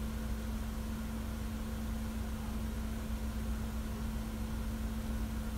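Steady room tone: an even hiss with a constant low hum.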